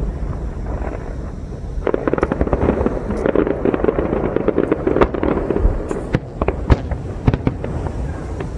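Fireworks display: a dense rapid crackling starts about two seconds in and runs for several seconds, followed by a few scattered sharp bangs from bursting shells.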